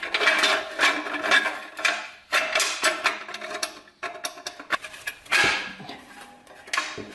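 Irregular metallic clinking and scraping as a 4L80E transmission's reverse band is worked into place inside the aluminium case, with short knocks and brief ringing.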